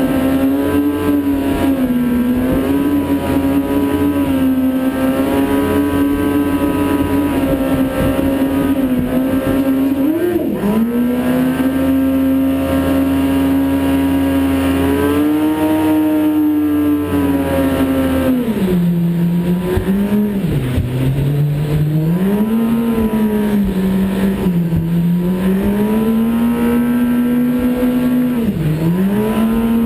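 Kawasaki ZX-10 inline-four motorcycle engine powering a jet dinghy through a Yamaha jet-ski pump, running hard at high, steady revs. The throttle is briefly eased and reopened several times, and the note settles lower after about eighteen seconds.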